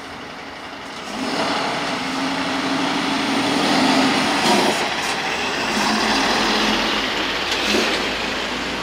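Diesel engine of a Mercedes-Benz fire tanker truck pulling away and driving past, getting loud about a second in. Its engine note drops off sharply about halfway through and again near the end.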